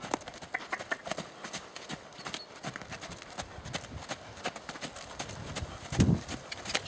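Hoofbeats of a horse trotting on a sandy arena surface: a steady run of dull clip-clop footfalls. A brief, louder low burst of noise comes about six seconds in.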